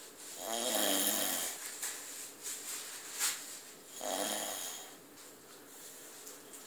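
A man snoring in his sleep: two snores about three and a half seconds apart, the first longer and fluttering, the second shorter, with a brief sharp click between them.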